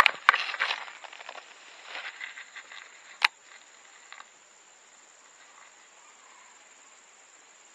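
Baitcasting reel worked in two short bursts of fine, rapid clicking, with one sharp click about three seconds in. A steady high insect drone continues underneath after the reel goes quiet.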